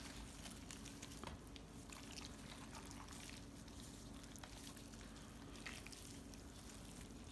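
Faint light clicks and soft wet handling noises as shredded pulled pork is worked apart and divided, over a steady low hum.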